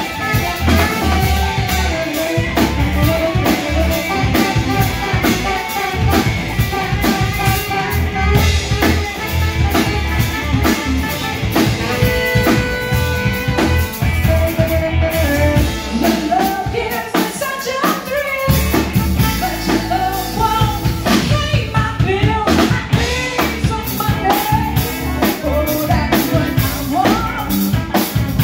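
Live blues band playing an upbeat number, with electric guitar, bass, drum kit and horns.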